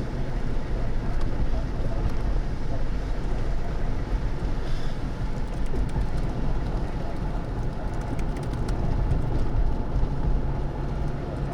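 Steady low rumble of a vehicle driving, with wind buffeting the microphone.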